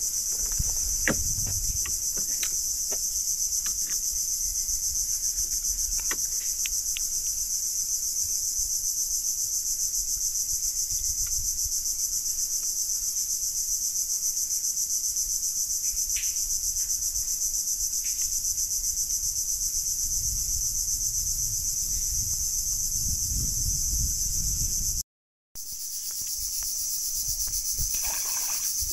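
Steady, high-pitched chorus of insects. It is joined by a few light clicks in the first seconds and a low rumble near the end, and it cuts out for a moment about 25 seconds in.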